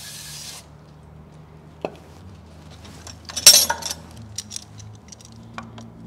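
Aerosol spray hissing from a can's straw nozzle, cutting off about half a second in. Then metal hand tools clink: a single click, a loud clatter as a pair of pliers is handled about three and a half seconds in, and lighter metallic ticks after.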